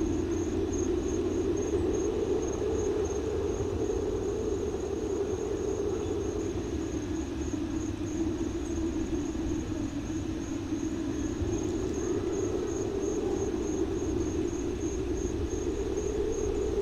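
A steady low drone with a rumble under it, and above it a high, evenly repeating chirp like a cricket's.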